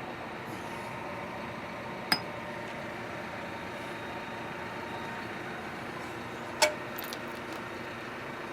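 Tractor engine idling steadily in the background, with two sharp metallic clinks about two seconds in and again near the end, followed by a few lighter ticks.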